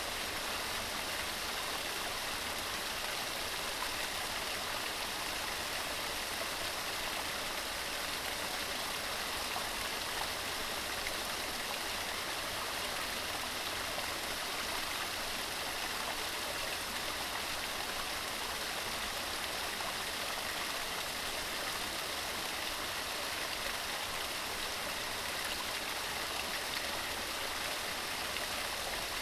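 Mountain stream running over rocks, a steady, even rush of water with no change.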